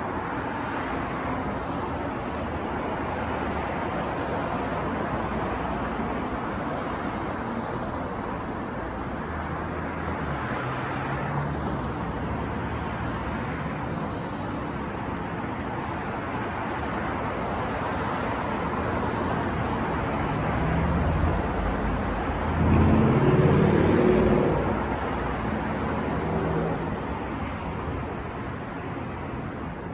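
City street traffic: a steady wash of passing cars, with a heavier vehicle's engine swelling louder as it passes close about three-quarters of the way through.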